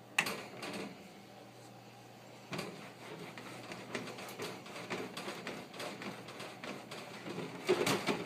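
Microfibre scrub mitt rubbing back and forth over the wire bars and plastic base tray of a small-animal cage, with small knocks and rattles of the bars. A knock and a short scrub open it; after a brief pause the scrubbing runs on steadily, loudest near the end.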